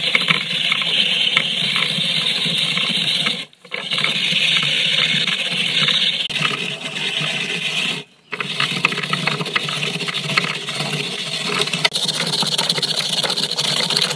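Fresh coconut flesh being grated on a serrated metal coconut scraper, a continuous rasping scrape with two brief breaks, about a third and then halfway through.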